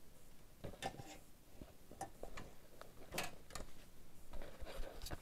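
Scattered light clicks, knocks and rustles of things being handled and shifted while someone rummages through clutter, with a few sharper knocks about three seconds in and near the end.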